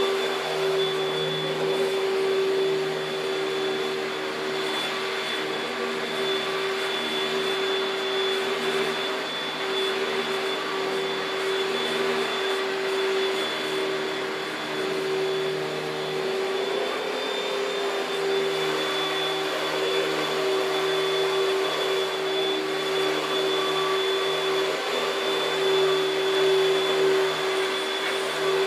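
Panasonic Jet-Flo MC-6217 upright vacuum cleaner running steadily: motor whine with a high thin tone over rushing air. Its lower hum fades for a few seconds about halfway through.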